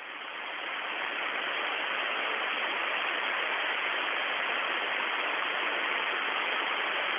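Steady hiss of an open space-to-ground radio channel between transmissions, building over the first second and then holding level.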